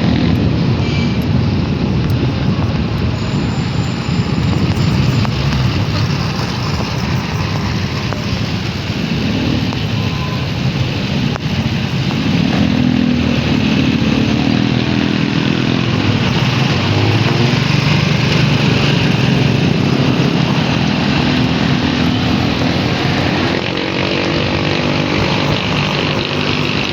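Motorcycle engine running while riding, its note shifting up and down several times, over a steady rush of wind on the microphone.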